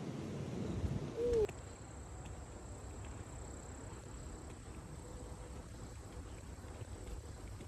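An insect, such as a cricket, singing as one steady high-pitched tone against quiet outdoor background noise. It starts about a second and a half in, after a brief stretch of louder outdoor noise.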